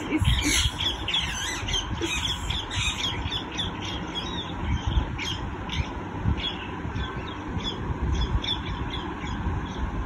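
Parrots squawking: a rapid run of short, shrill calls that overlap thickly in the first few seconds, then come singly and in pairs.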